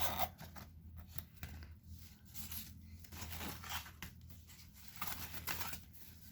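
Irregular rustling, crinkling and tearing of packaging as items are handled and unwrapped, over a low steady hum.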